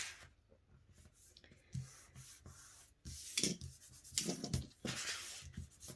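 Paper cardstock rubbed and handled by hand, with a few brushing, rustling strokes in the second half and soft taps.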